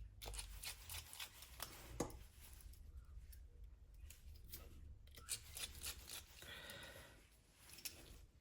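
Faint small clicks and scrapes of a precision screwdriver fitting tiny screws into a Samsung S22 phone's frame, with a sharper click about two seconds in.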